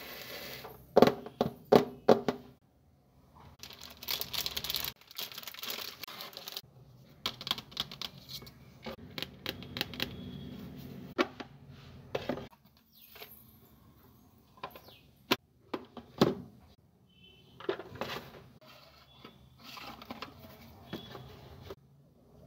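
Hands handling stationery in a cardboard box: irregular taps and knocks as notebooks, a plastic container and a pen are set in place, with stretches of paper and cardboard rustling. The loudest is a quick cluster of taps about a second in.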